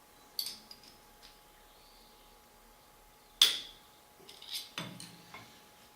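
Metal tools clinking on the lathe's cross-slide during adjustment: a few light clicks and one sharp, ringing metallic clink about three and a half seconds in.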